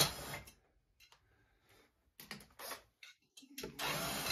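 Light, scattered clicks and handling noises from hand work on a partly dismantled chainsaw, with a brief scrape near the end; a louder noise dies away in the first half second.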